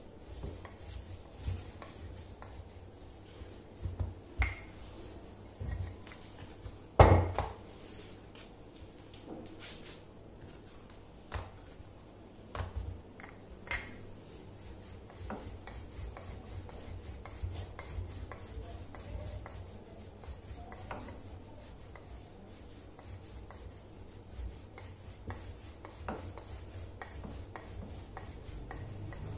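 Wooden rolling pin rolling out naan dough on a floured wooden board: soft, uneven rubbing with low bumps as the pin goes back and forth, and one sharp knock about seven seconds in.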